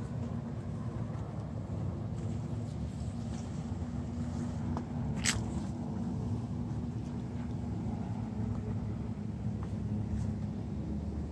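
Steady low mechanical hum and rumble, with one brief sharp click about five seconds in.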